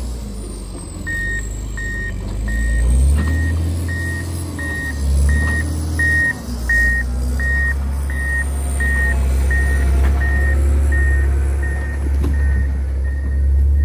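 John Deere 670 GP motor grader's diesel engine running steadily while its reversing alarm beeps about one and a half times a second, starting about a second in: the grader is backing up.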